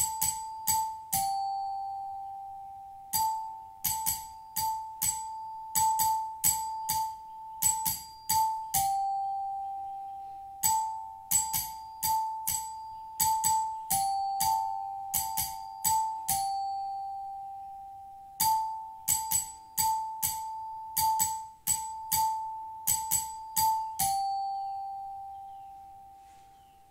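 Small bright metal chimes struck in quick flurries of several strikes, each flurry left to ring out as a steady tone. The held note switches back and forth between two close pitches, and the last flurry fades away slowly.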